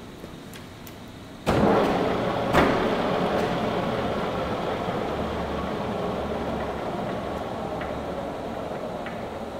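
WMW FU 400x1600 milling machine starting up about a second and a half in: its drive comes on suddenly, then runs with a steady mechanical noise, with a single clunk about a second after the start.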